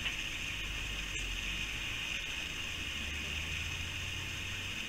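Steady background noise: an even high-pitched hiss over a low hum, with no distinct event.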